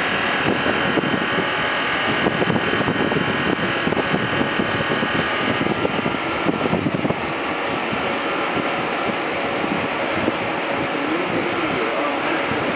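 Electric suburban train running past on the track and pulling away: a steady rolling noise of wheels and motors, with a high whine that fades about halfway through.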